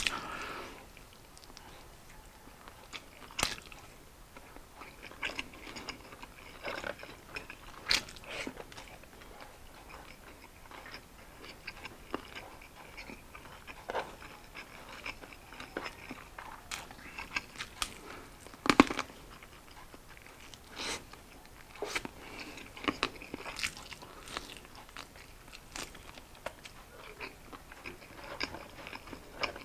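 Chewing and biting of sauced fried chicken wings and rice, with scattered short crunches and clicks; the sharpest bites come about 3, 8 and 19 seconds in.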